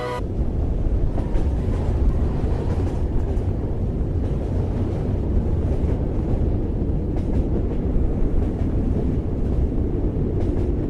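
A steady low rumbling noise with its weight in the deep bass, even and without a clear beat.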